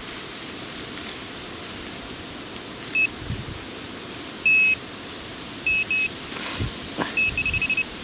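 Chinese handheld pinpointer probe beeping as it is worked through the soil of a dig hole: single short beeps about three, four and a half and six seconds in, then a quick run of beeps near the end as it closes on the target, a Mosin rifle cartridge case.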